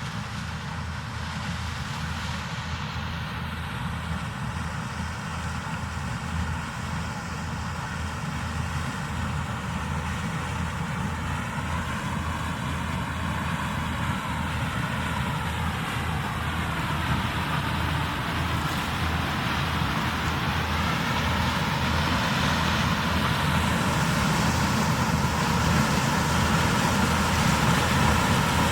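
Heavy farm machinery engine running steadily, its low rumble growing gradually louder as it draws closer, with slow shifts in pitch.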